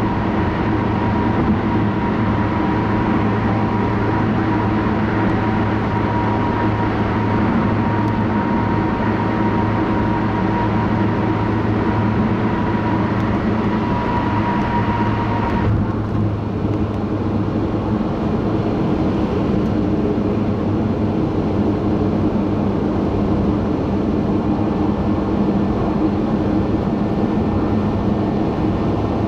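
Steady road and engine noise of a car at highway speed, heard inside the cabin, with a low hum and a faint thin whine. About halfway through, the higher hiss drops away abruptly as the car leaves a tunnel.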